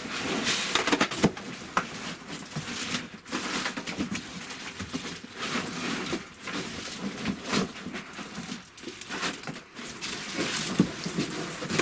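Irregular rustling, scraping and knocking as cardboard and polystyrene packing and the lathe's parts are handled.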